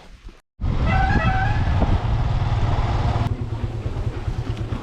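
Motorcycle riding on the road: a steady low engine rumble under heavy wind noise. A brief higher tone with several pitches sounds about a second in.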